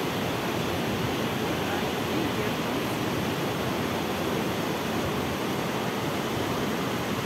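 Steady rush of a fast mountain river running over rocks and gravel.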